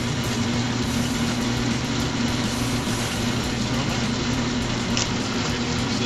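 Bluerock Model 945 wire stripping machine running steadily: its 3 HP single-phase electric motor and gear-and-belt drive give a constant hum over an even mechanical noise. There is a brief high squeak about five seconds in.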